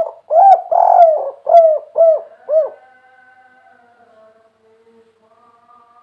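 Spotted dove cooing: a quick run of about six arched coo notes in the first three seconds, the second held longer than the rest.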